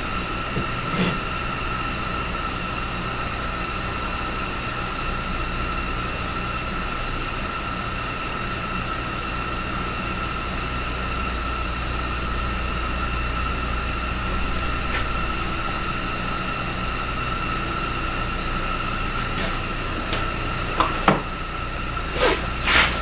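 A steady hiss with a constant high whine and a low hum, from a machine running without change, with a few light knocks near the end.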